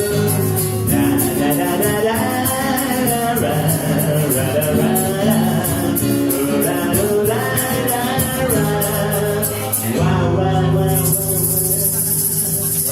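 Live band music with no lyrics: a melodic passage over a steady beat of quick ticks. About ten seconds in it changes to held chords with a steady high hiss on top.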